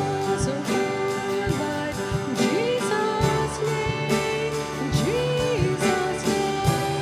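A live worship band playing: acoustic guitar, electric guitar and keyboard, with a sung lead vocal line.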